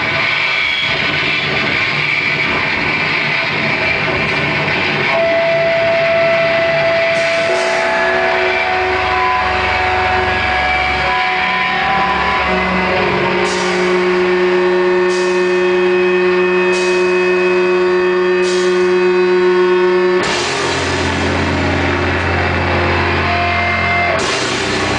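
Live doom/sludge metal band playing slowly: heavily distorted guitar and bass let long held notes ring out over a drone, with sparse cymbal crashes landing about every second and a half to two seconds in the second half. The low notes shift to a heavier chord about 20 seconds in.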